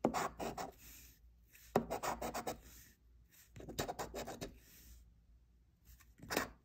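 A coin-like scratcher scraping the latex coating off a scratch-off lottery ticket, in four short bouts of rapid strokes with brief pauses between.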